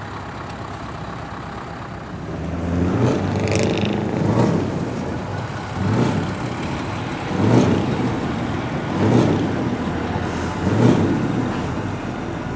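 Heavy trucks' diesel engines revving in a series of short swells, about one every second and a half, over a steady rumble, with brief hisses of air.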